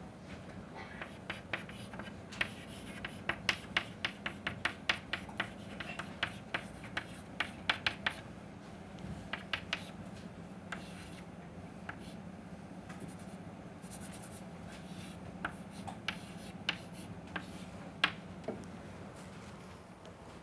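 Chalk writing on a blackboard: a quick run of sharp taps and short scratches through the first half, then a few scattered taps later on, over a steady low hum.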